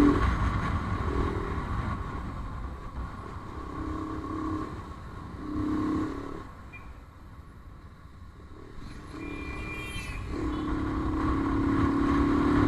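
Motorcycle engine running while riding, its note coming and going as the throttle opens and closes, over a steady low wind rumble. The engine drops back for a few seconds in the middle, then pulls steadily again near the end.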